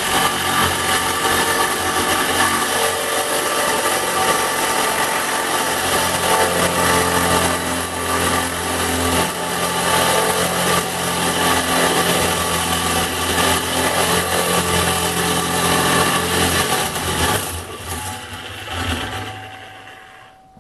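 Ozito reciprocating saw cutting through an aluminium alloy car wheel rim: a loud, steady sawing din that runs down and stops near the end as the saw is withdrawn.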